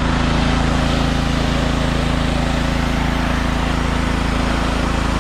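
An engine running steadily at a constant speed: a low, even hum with a hiss over it.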